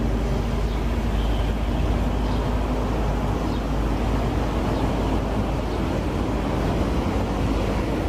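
Steady low rumble and hiss of outdoor background noise, heaviest in the deep bass, with a faint hum in the first couple of seconds.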